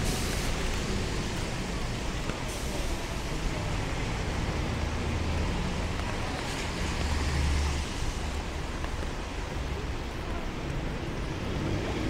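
Road traffic passing on wet tarmac: a steady hiss of tyres on the rain-soaked road under the running of car engines, with a deeper low rumble about five to eight seconds in.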